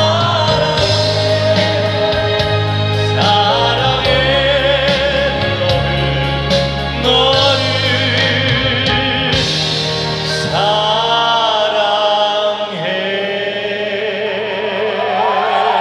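Live ballad performance: a singer holds long notes with vibrato over band accompaniment, changing notes every few seconds.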